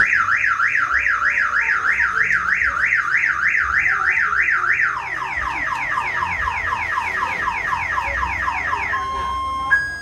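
Car alarm siren going off: a fast up-and-down warble for about five seconds, then quick falling sweeps about four a second. It stops near the end with two short steady beeps.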